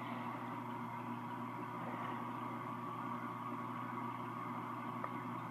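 Steady low hum of room background noise, with one faint click about five seconds in.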